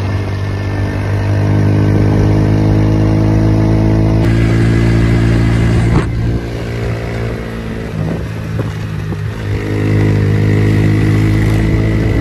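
125 cc motorcycle engine running hard at road speed, a steady drone. It drops back about six seconds in and picks up again to full strength near the end.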